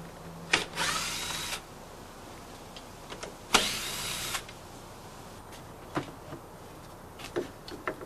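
Cordless drill/driver running in two short bursts of about a second each, each starting with a click, as screws are backed out of and driven into a wooden story pole. A few light knocks follow near the end.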